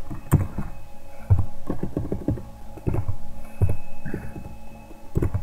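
Computer keyboard keys tapped in irregular clicks while code is typed and edited.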